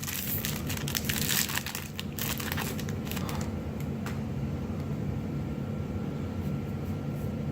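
Foil booster-pack wrapper of Magic: The Gathering cards crinkling as it is torn open, densest in the first two and a half seconds, then a few faint rustles and clicks of handled cards.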